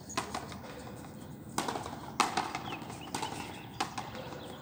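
Frontenis rally: sharp smacks of the hard rubber ball off racquets, the fronton wall and the concrete floor, about five irregularly spaced hits, some with a short echo.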